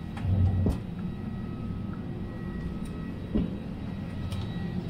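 Steady low rumble of a vehicle in motion, with a heavier thump just under a second in and a short knock about three and a half seconds in.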